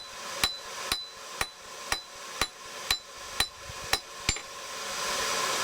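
Blacksmith's hammer striking hot steel on an anvil, about two blows a second, each with a short bright ring, as a J hook is spread a bit wider. The blows stop a little over four seconds in, and a steady rushing noise then builds.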